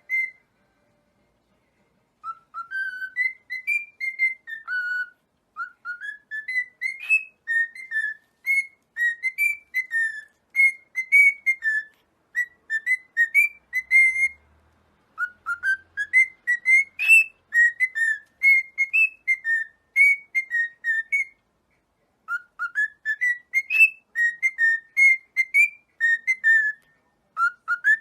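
Cockatiel whistling a tune: runs of clear, pure notes stepping up and down, sung in phrases that repeat several times with short pauses between them.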